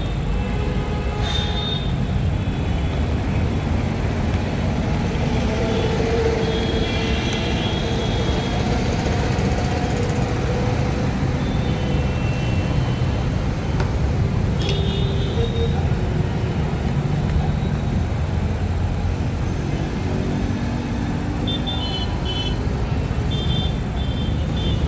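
Steady road-traffic rumble with several short vehicle horn toots sounding over it.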